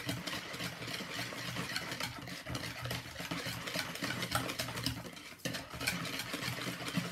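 A hand utensil beating a runny mixture of eggs, sugar and coconut milk in a large plastic bowl: quick, continuous scraping and tapping strokes, with a brief pause about five seconds in.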